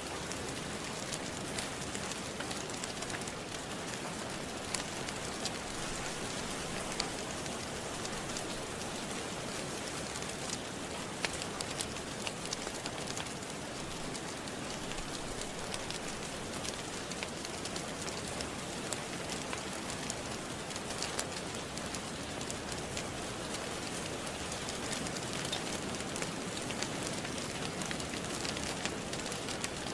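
Steady rain with a crackling fire: an even wash of rain noise, with scattered small sharp pops and crackles throughout.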